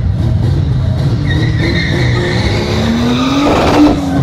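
Classic Chevrolet Opala sedan doing a burnout: the rear tyres squeal over the loud engine, and the revs climb about three seconds in.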